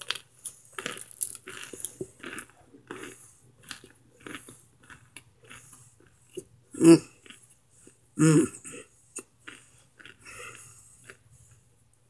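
Microwaved Argo cornstarch chunks crunching and crumbling in an irregular run of crunches, with two much louder crunches a little past the middle.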